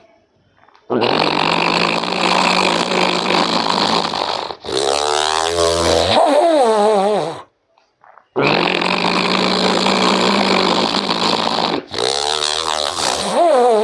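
Ujjayi pranayama breathing through a narrowed throat, loud and rasping, in two cycles. Each cycle is a long breath of about three to four seconds followed by a shorter one that carries a wavering hum.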